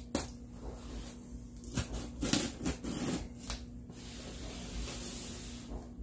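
A small knife slitting the packing tape on a cardboard shipping box, with clicks and scrapes of the blade on the cardboard. About four seconds in, a steady scraping hiss as the box is slid and turned on the table.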